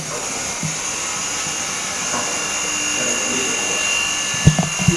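Pump of a JiuTu STL-M007 mini OCA vacuum laminating and debubbling machine running steadily, a hiss with a high whine. A couple of low knocks come near the end.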